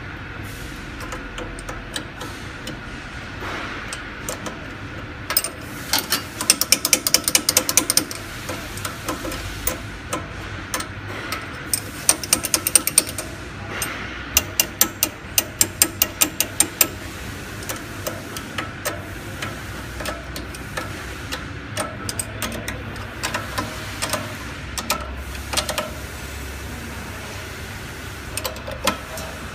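Three runs of rapid metal clicking, several clicks a second, from a hand tool being turned on the bag-clamp adjusting bolts of a rotary pouch packing machine. A few single knocks fall between the runs, over a steady background hum.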